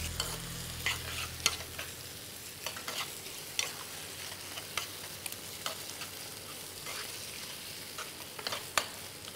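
Sliced bell peppers and onions sizzling in butter and sauce in a frying pan. A metal spoon stirs and scrapes against the pan, making frequent short clicks over the steady sizzle.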